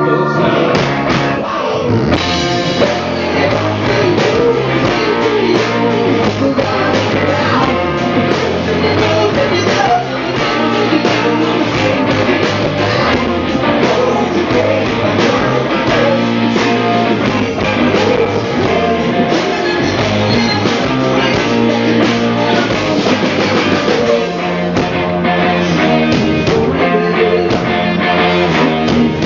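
Live rock band playing a song: guitar and drum kit with a singer.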